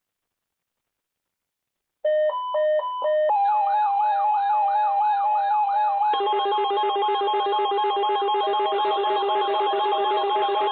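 Several weather alert radio receivers sounding their alarms at once, set off by the National Weather Service weather radio warning alarm test. Alternating beeping tones start about two seconds in. A rising-and-falling siren-like whoop joins a second later, and more pulsing beeps pile on about halfway through.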